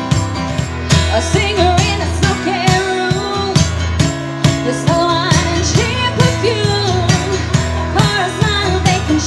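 Live pop-rock music: a woman singing over a strummed acoustic guitar, with a steady beat about twice a second.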